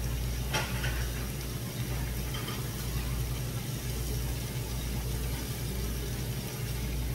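A steady low hum under an even hiss as pork belly and squid cook on a hot tabletop griddle, with a light click about half a second in as chopsticks touch the plate.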